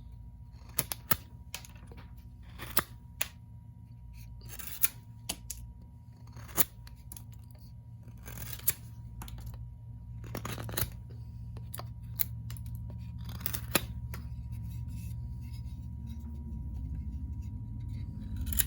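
Thin-ground traditional pocket knife cutting into cedar: irregular crisp snicks and crackles as the blade shaves through the soft wood, over a steady low hum.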